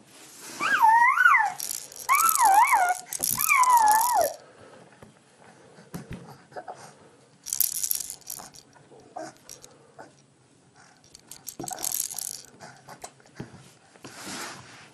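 A toy rattle shaken in bursts, loudest over the first four seconds, with a high wavering voice-like sound over those shakes. Shorter shakes come about eight, twelve and fourteen seconds in, with soft taps between them.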